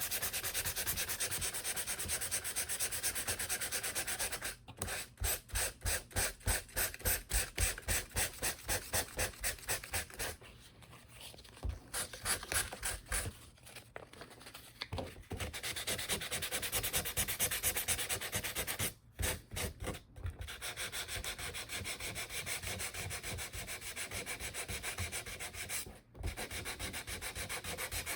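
Fine 320-grit sandpaper rubbed by hand over thin laser-cut wood pieces in quick, rhythmic back-and-forth strokes, stopping briefly a few times; the light sanding takes off the laser burn marks.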